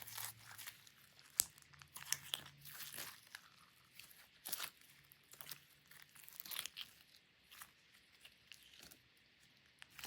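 Sticky slime being pulled and worked by hand, giving irregular crackles, small pops and tearing sounds, with one sharp snap about a second and a half in.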